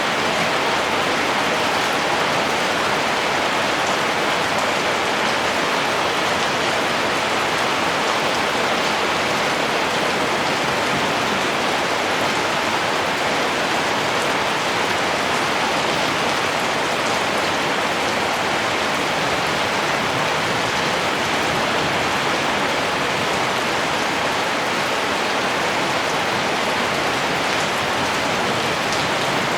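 Rain falling steadily: a dense, even hiss of countless drops with no breaks or swells.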